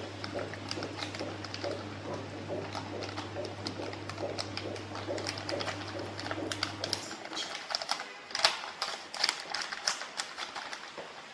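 Plastic bag of ice cream powder crinkling and rustling as it is handled and shaken over a jug of water, making irregular sharp crackles that are densest and loudest in the last few seconds. A low steady hum runs underneath and stops about seven seconds in.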